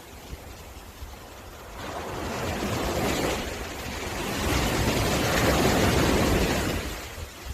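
Sea waves washing up on a beach: two swells of surf noise, the second louder, then falling away near the end.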